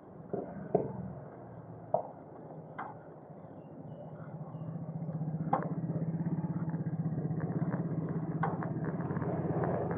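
A motor vehicle engine running close by, a steady low drone that builds from about four seconds in and stays loud. Before it there are a few short sharp knocks.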